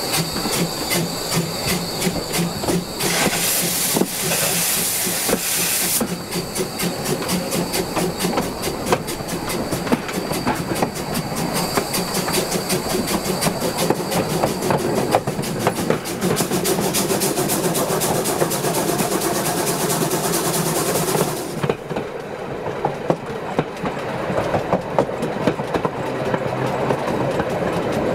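Railway wagon wheels rolling along the rails under a steam-hauled train, with a running clatter of rail-joint clicks and wagon rattle. A burst of hiss comes in about three seconds in and lasts a few seconds. Later on the sound turns duller.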